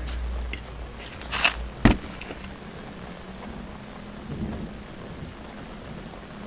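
Steady hiss of rain, with a low rumble fading out in the first second. A sharp knock about two seconds in.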